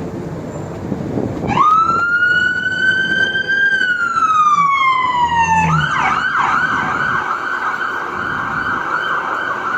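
Emergency-vehicle siren: a slow wail that rises, holds and falls, then switches a little over halfway through to a fast repeating yelp. A low rumble sits under the start, before the siren comes in.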